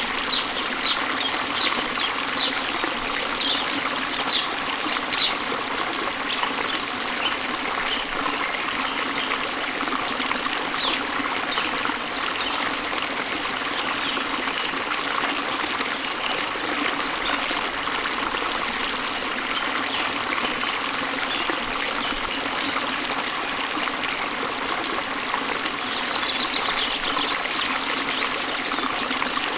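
Waterfall's steady rush of water, with short high bird chirps over it, thickest in the first few seconds and again near the end.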